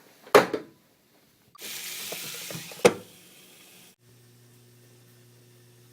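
A sharp knock, then about two seconds of steady hiss with a second knock in it, cut off abruptly. After that comes a faint, low, steady electrical hum.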